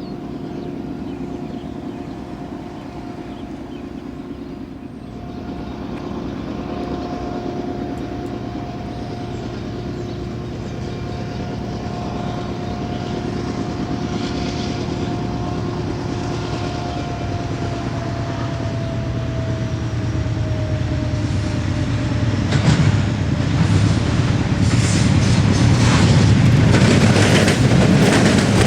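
Diesel freight train approaching: a low locomotive engine drone that grows steadily louder, with a steady tone that slides lower in pitch partway through. Wheels clatter over the rails in the last several seconds as the train draws close.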